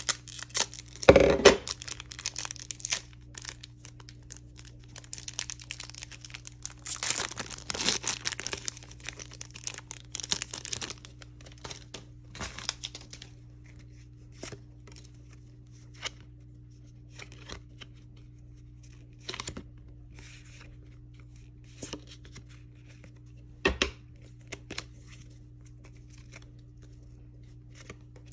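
Foil booster pack of trading cards being slit open with a knife and torn, with crinkling of the wrapper, the loudest rustling about a second in and again for a few seconds near the middle. Afterwards the cards are slid out and handled, giving scattered light taps and flicks.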